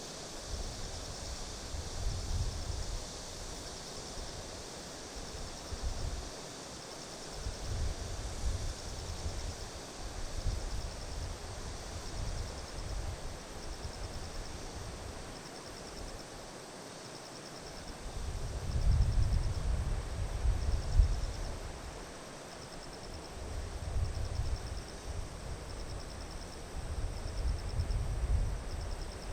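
Wind gusting on the microphone in uneven surges, strongest a little past halfway, over the steady trilling of insects, which pulses about once a second. A faint even rush of river water runs underneath.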